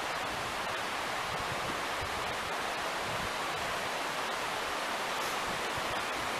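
A stream swollen and churning after rain, its running water making a steady, even hiss.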